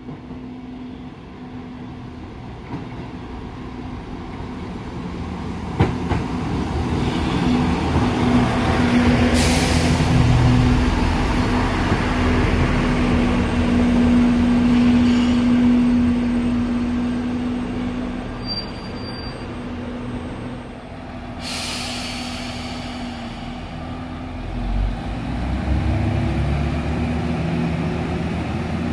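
JR Central diesel railcar approaching and running past on the platform track, its engine drone and wheel noise growing loud and then easing off, with short hisses about a third of the way in and again about two-thirds in. Near the end a diesel engine rises in pitch.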